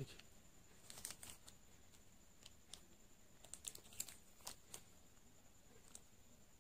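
Faint, scattered crinkles and clicks of a thin clear LDPE plastic sleeve around a small external hard drive as it is handled and turned over in the hands.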